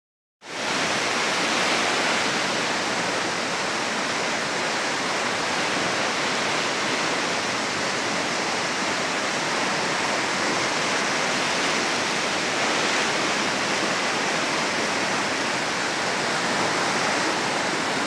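Steady rushing of a river in flood, its swollen water churning and surging past the bank.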